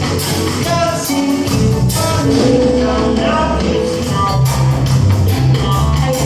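A band playing a song with a sung vocal melody over the instruments; a deep bass part comes in about a second and a half in.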